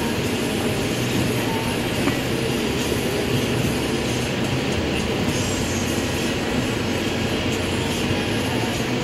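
Steady road noise inside a moving car's cabin: the engine running and the tyres rolling over a snow-covered road.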